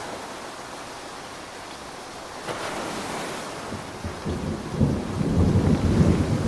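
Steady rain hiss, with a brief surge about two and a half seconds in, then a rolling thunder rumble that builds from about four seconds in and grows loud near the end.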